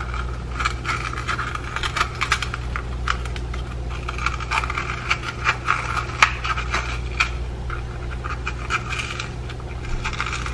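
Small kitchen knife cutting around the stem of a green bell pepper held in the hand: a run of irregular crisp clicks and scratches as the blade works through the flesh, over a steady low hum.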